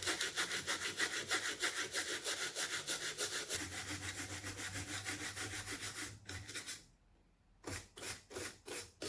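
Rapid back-and-forth scrubbing on an amplifier circuit board wetted with alcohol, cleaning off solder flux, at about six or seven strokes a second. It stops about six seconds in, then comes back as slower, separate strokes about two a second.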